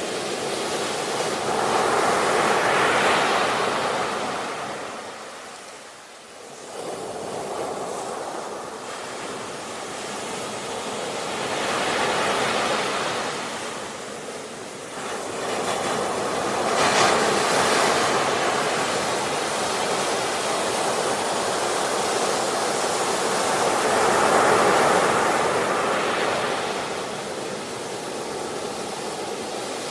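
Sea waves, the surf rising and falling in slow surges, with a brief lull about six seconds in.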